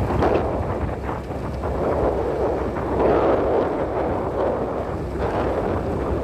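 Wind buffeting the microphone: a steady rumbling noise that swells and eases every second or two.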